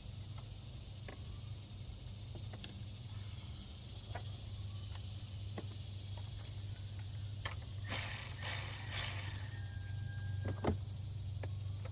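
Scattered light clicks and taps of parts and hand tools being handled, over a steady low hum. There is a short rustle about eight seconds in and a sharper click near the end.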